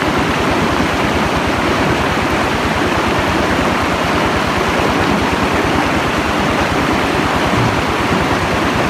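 Stream water rushing steadily, a loud even hiss.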